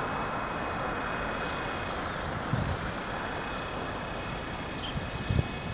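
Steady outdoor background rush with a couple of brief low thumps, about two and a half and five seconds in.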